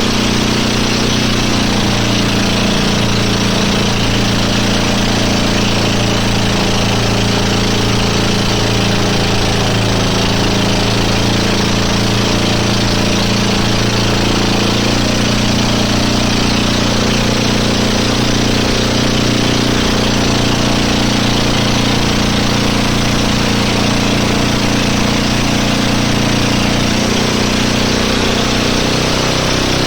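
Boat engine running steadily at a constant pitch, loud and unbroken, with a noisy rush over its hum.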